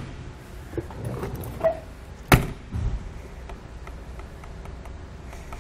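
RV baggage compartment door being worked on its new slam-latch locks: one loud, sharp clunk of the door and latch about two seconds in, with a few faint clicks of handling around it.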